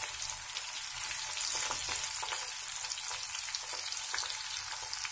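Corn-flour-coated sweet corn kernels deep-frying in hot oil, sizzling steadily with scattered sharp pops and crackles as the kernels burst.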